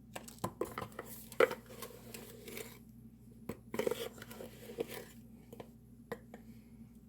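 Kitchen handling sounds: scattered light clicks and knocks of containers and utensils being moved, with a few brief rustles of packaging, over a low steady hum.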